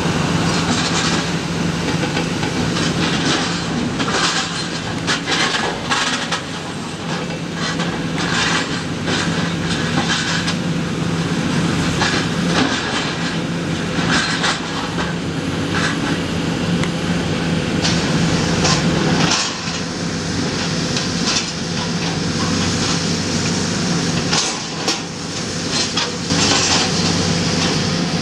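Komatsu PC400LC excavator's diesel engine running steadily under load, with repeated metal clanks and crunches as its demolition shear grips and bites through heavy scrap steel.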